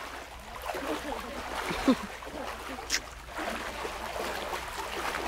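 Water sloshing and splashing around the legs of several people wading through shallow water, with faint voices in the background and one sharp tick about three seconds in.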